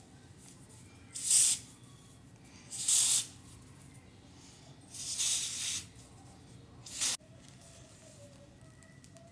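Spray bottle spraying in four separate bursts of hiss, each about half a second long, the last short one ending in a click.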